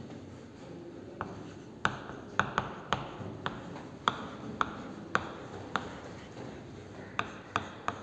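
Chalk writing on a chalkboard: about a dozen sharp, irregular taps as the chalk strikes the board, with faint scratching between them.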